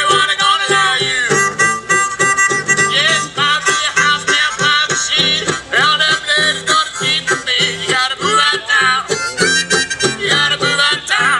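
Old-time instrumental music played on a banjo and two horn-belled wind instruments: a wavering high melody over an evenly bouncing bass line.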